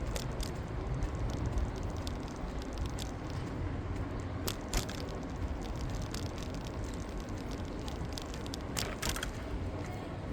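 Bicycle riding along city streets: a steady low rumble from the tyres and the moving bike, with scattered sharp clicks and rattles, a short cluster of them near the end.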